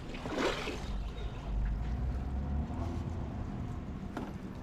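Splashing and dripping water as a ring crab net is hauled up through the surface on its rope, loudest in a noisy burst about half a second in, over a steady low rumble.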